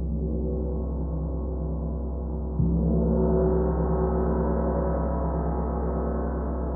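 A 32-inch handcrafted spiral gong ringing with a deep, sustained tone and many overtones. It is struck again softly about two and a half seconds in, and the sound swells, its higher overtones growing stronger before slowly easing off.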